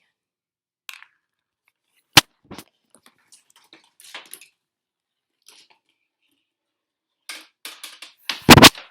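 A marble clattering through a homemade marble run of toy track pieces and household objects: a sharp click about two seconds in, scattered light ticks and rattles, then a quick run of clacks and a loud double knock near the end.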